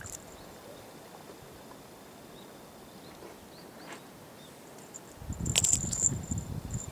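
Quiet outdoor background for about five seconds, then a feather cat-teaser toy jingling and rustling with low rumbling knocks as it is swung about for cats to pounce on.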